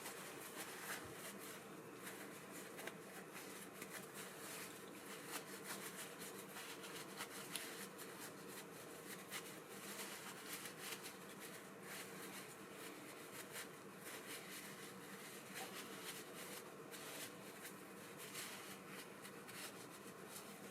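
Faint, irregular small clicks and scrapes of small parts being handled, over a low steady hum.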